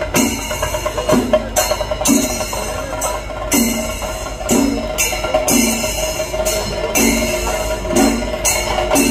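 Kerala temple percussion ensemble of drums and cymbals playing a steady, driving rhythm, with strong accented strikes about once a second over a held wind-instrument note.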